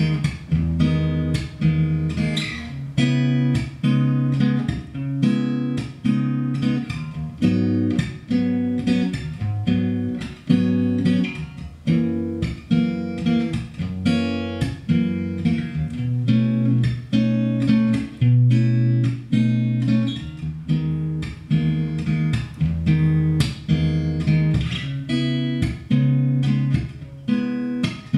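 Solo steel-string acoustic guitar, fingerpicked: an instrumental piece with low bass notes that change about once a second under a steady run of higher picked notes.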